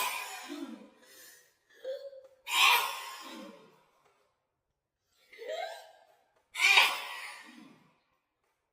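A woman sneezing in a fit: three loud sneezes. The second and third each follow a sharp, rising in-breath.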